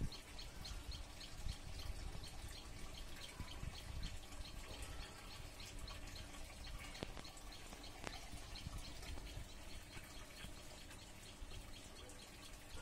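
Outdoor ambience: a rapid series of short, high chirps, about four a second, stops about halfway through, over a low rumble with a few faint knocks.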